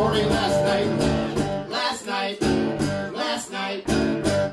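Live acoustic guitar strummed in rhythm with a bass guitar underneath, a duo playing a folk-country song.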